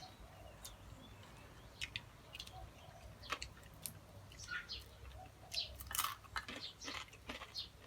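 Close-up chewing of grilled frog: wet mouth sounds with irregular short crunchy clicks, thickest in the second half.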